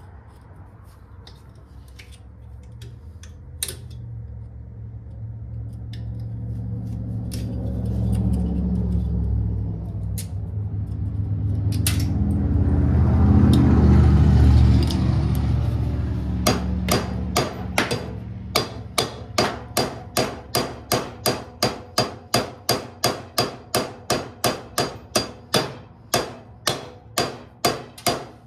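Hammer blows on the stuck rear pulley of a Poulan riding mower, a fast even run of about two to three sharp strikes a second through the last third, knocking at a pulley that will not come off. Before the hammering, scattered metal clicks of tools and a low rumble that swells for several seconds and then fades.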